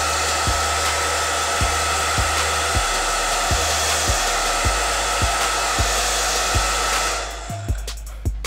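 Handheld hair dryer running steadily with a thin whine, blowing on a wig's lace to dry the freshly applied hold spray. It switches off about seven seconds in. A background music beat plays underneath.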